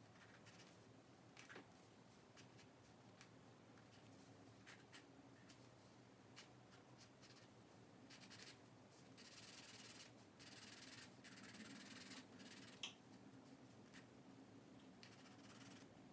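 Faint scratching of a white charcoal pencil stroking across sketchbook paper, in short hatching strokes, with busier runs of strokes a little past the middle and near the end.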